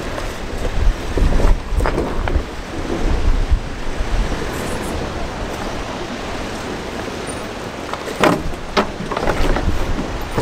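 Four-wheel-drive vehicle driving over rough ground, with a steady low rumble and clusters of knocks and rattles about a second in and again near the end.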